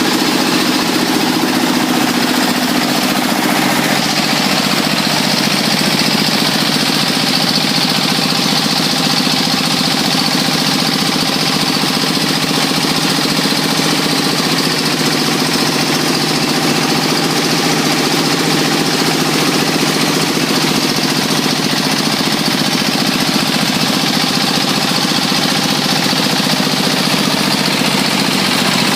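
Rice milling machine running steadily: a loud, unbroken mechanical hum with a hissing rush over it.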